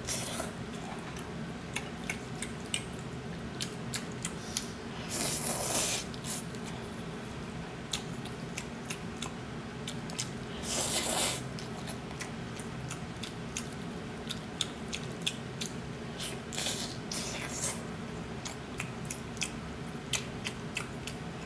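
Close-miked eating sounds of grilled eel and black bean sauce noodles: many short wet mouth clicks and smacks from chewing, with two longer noodle slurps, one about five seconds in and one about eleven seconds in.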